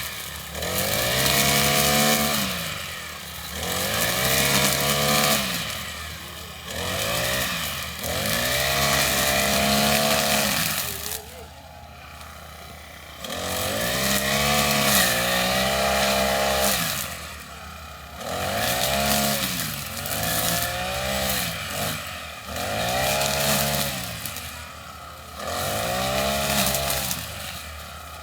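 Small petrol lawnmower engine revving up and falling back again and again, about every two to three seconds, with a quieter lull near the middle.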